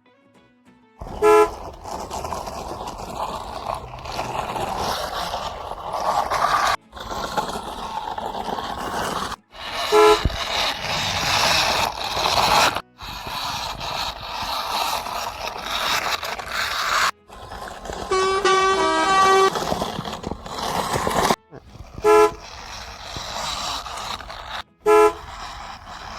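Truck horn honking in several short blasts and one longer blast. Between the blasts runs a steady noisy vehicle sound that breaks off abruptly now and then.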